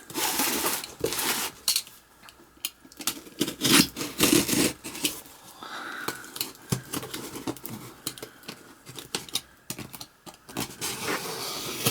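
A cardboard parcel being opened by hand: irregular rustling, scraping and tearing of packaging, with scattered sharp clicks and knocks.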